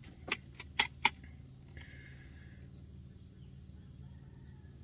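Spoons clinking against bowls, three sharp clinks in the first second or so, over a steady high-pitched insect drone.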